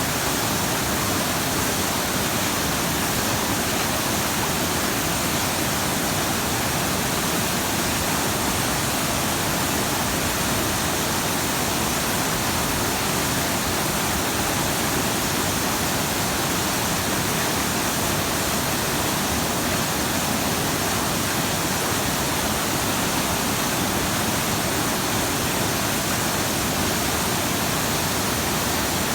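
Waterfall: water falling and splashing into a pool, a steady, even rush with no breaks.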